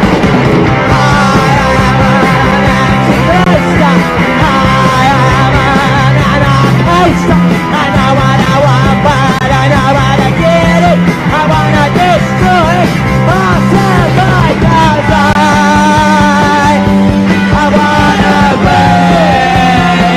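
Punk rock band playing loudly: distorted electric guitars over a driving bass line and drums.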